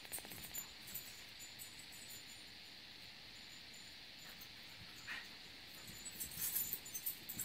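Two miniature pinschers play-wrestling on a quilted bed: soft scuffling and rustling of the bedding with faint high clinking, a short squeak about five seconds in, and a louder flurry of rustling and clinking near the end.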